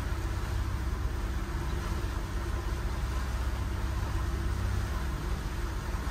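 Boat engine running steadily, a low even rumble.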